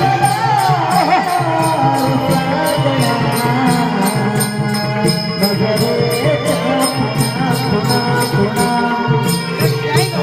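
Indian folk music: sustained drone-like tones under a gliding melody, with a steady percussion beat of about three strokes a second.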